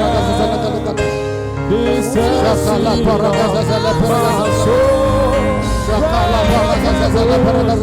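Gospel worship music, with voices singing over steady instrumental backing.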